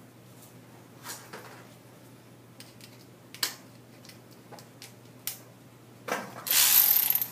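A few light metallic clicks of hand tools being handled, then, about six seconds in, a loud rapid ratchet wrench clicking as the Loctited set screw is run into the primary clutch.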